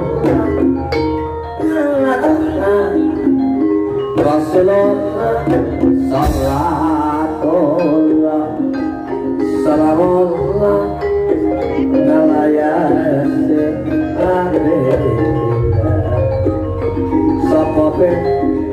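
Javanese gamelan music in the Banyumasan style: mallet-struck metallophones play a running melody of short ringing notes over a drum beat.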